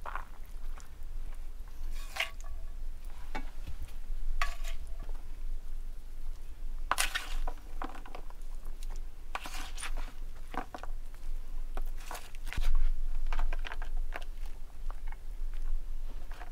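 Spoon scooping and spreading moist ground-beef filling over tortillas in a casserole dish: irregular soft scrapes and squishes with a few light clinks against the dish.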